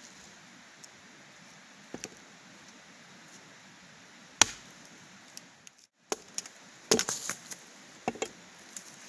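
A blade chopping into firewood. There is a light double knock about two seconds in and a single sharp strike halfway through, the loudest. In the last three seconds comes a quick run of strikes with clattering wood.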